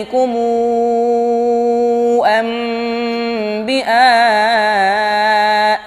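A child reciting the Quran in melodic tajwid style, holding long drawn-out notes. From about the middle the voice moves into a wavering, ornamented passage, then breaks off just before the end.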